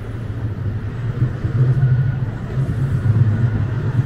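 Low rumble of street traffic as a city tram and cars roll past on a brick-paved street, swelling about a second in.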